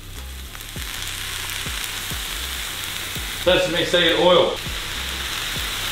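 Brown rice, broccoli and carrot sizzling steadily in a hot frying pan as soy sauce is shaken in, the sizzle building over the first second. A short burst of voice comes about three and a half seconds in.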